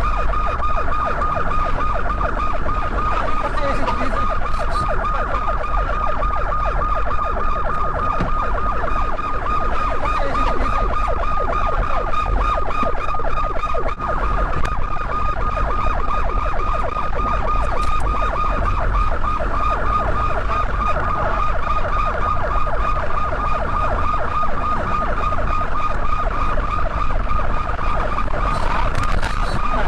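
South Korean police car siren sounding a fast warble, its pitch wavering rapidly up and down around one high tone, with a low rumble underneath.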